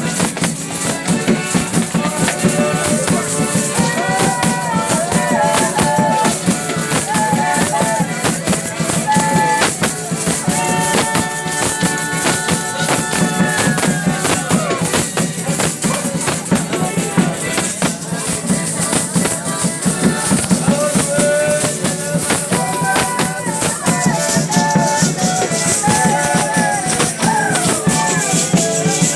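Folia folk music: a steady shaking of rattles and tambourine under a wavering melody.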